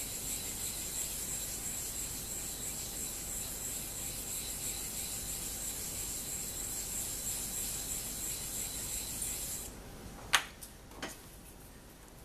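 A small stone block rubbed back and forth on a wet 1000/4000-grit combination water stone, a steady gritty scraping that stops nearly ten seconds in. Two sharp knocks follow, the first the louder.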